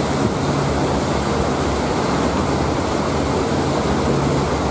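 Pleasure boat's motor running steadily under way, a constant low hum under a loud, even rush of water along the hull.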